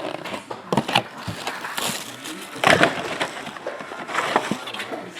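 A sealed trading-card box and its packs being handled and opened: crinkling wrapper and rustling cardboard, with a few sharp tearing or cracking noises, the loudest about two and a half seconds in.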